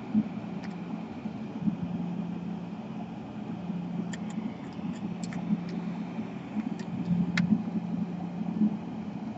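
Steady low hum, with a scattering of faint, light clicks from about four to seven seconds in, as small laptop parts and a wire are handled.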